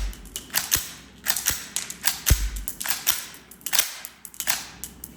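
Sharp metallic clicks and clacks of an Academy Luger model gun's toggle action being worked and its firing pin snapping, ejecting and chambering metal dummy cartridges, with a few heavier knocks among them. The ejection and feeding are working cleanly.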